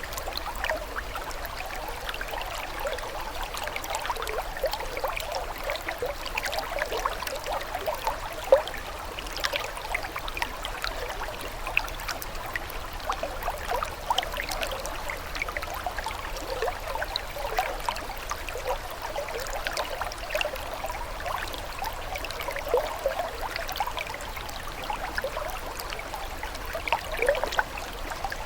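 Flowing water trickling and bubbling steadily: a constant run of small quick plinks and splashes over a light hiss, with little low rumble.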